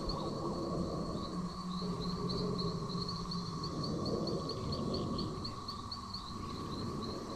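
Night-time nature ambience: insects chirping in a steady rhythm of about three chirps a second over a continuous high drone. A lower, rough sound swells and fades in the middle.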